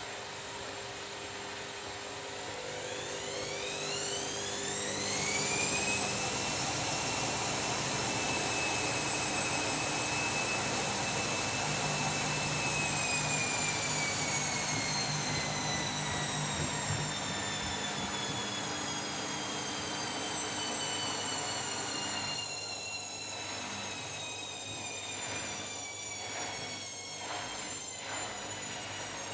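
Washing machine drum spinning: the motor's whine rises over a few seconds about two seconds in, holds steady at speed, then slowly falls as the drum slows down.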